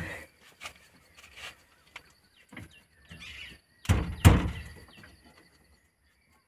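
Two heavy thumps about four seconds in, a hand striking the new door trim panel of a Maruti 800 to press its clips into the door, with small clicks and rustles of the panel before them.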